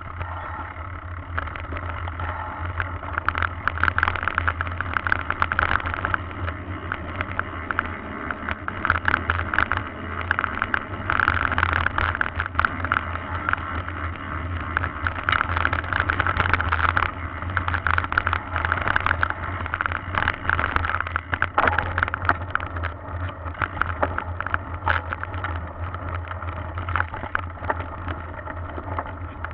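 Mountain bike rolling over a rough gravel and dirt track: the tyres crunch and the bike rattles with a dense, irregular clatter over the bumps, over a steady low hum.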